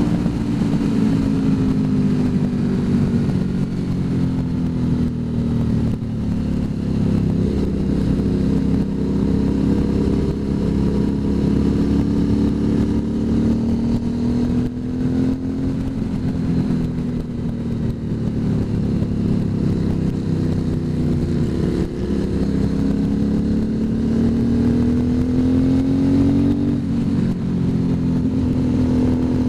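Motorcycle engine heard from a camera mounted on the bike while riding at a steady cruise. Its note eases down in pitch over the first several seconds, holds, then climbs again late on before dropping back near the end, with wind rumble underneath.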